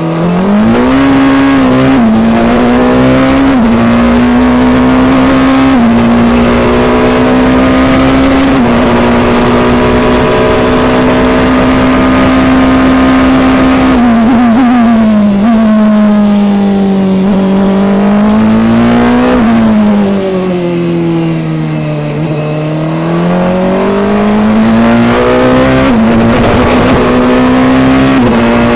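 Formula Two car's turbocharged four-cylinder engine at full throttle, heard on board, with quick gear changes as small steps in pitch. It holds one high, steady note for several seconds, then the revs fall through downshifts for a slower corner complex and climb again with upshifts near the end.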